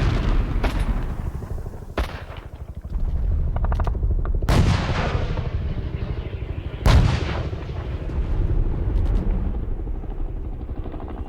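Battle sound effect: steady rattling machine-gun and rifle fire under a low rumble, broken by single loud shots about 2 and 4.5 seconds in and a heavy artillery-like blast with a long fading tail about 7 seconds in. Short rapid bursts of automatic fire come just before the second shot and again near the end.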